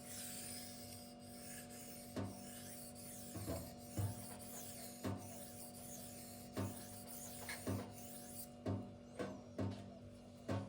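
A K110 steel knife blade being stroked freehand across a Gritomatic silicon carbide sharpening stone: a continuous scraping hiss with a short knock roughly every second.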